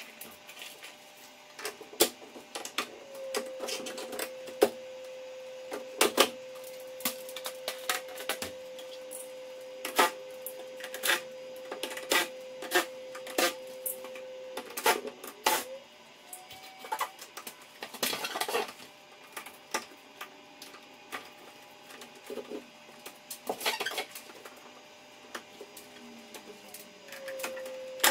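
Hard plastic clicks, knocks and rattles as the front panel and grille of a ceiling cassette air conditioner are unclipped and handled. A steady motor hum runs for about ten seconds, cuts out, and starts again near the end.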